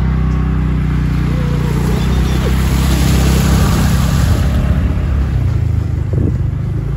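A motor scooter's engine runs steadily as it rides through floodwater, its wheels splashing and spraying water. The splashing is loudest in the middle, then dies away as the scooter rolls onto dry paving, leaving the engine.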